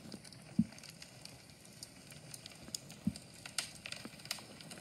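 Crackling of a log fire from a fireplace video played through a phone's speaker: scattered sharp crackles and pops. Two soft thumps come about half a second in and about three seconds in.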